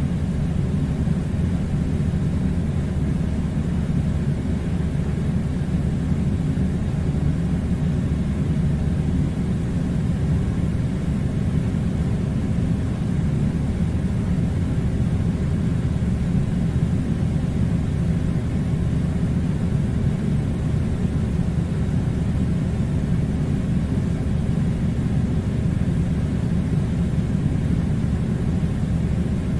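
Air conditioner running with a steady low rumble and a light hiss, unchanging throughout.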